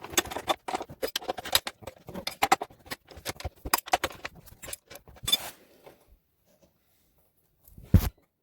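Irregular metallic clinking and rattling of hand tools and parts being handled on the ATV, then a single loud thump near the end.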